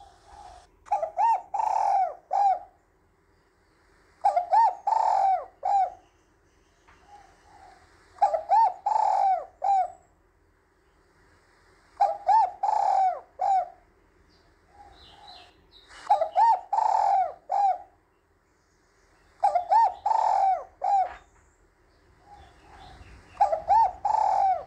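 Spotted dove cooing: its multi-note coo phrase repeated about every three to four seconds, seven times. It is a hen's call of the kind used to rouse cock birds.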